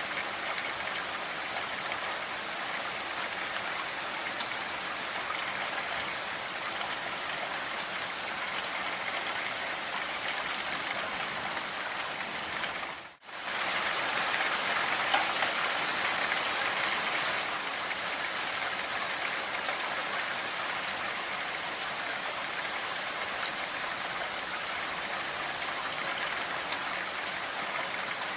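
Steady rainfall, an even hiss of drops hitting a surface. About halfway through, it fades out for a moment and comes back slightly louder for a few seconds before settling again.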